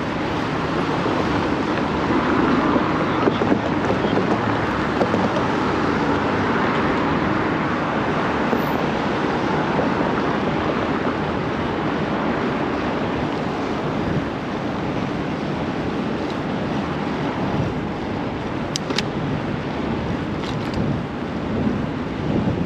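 Steady rushing noise of city traffic mixed with wind on the microphone of a bike-mounted action camera riding along a downtown street.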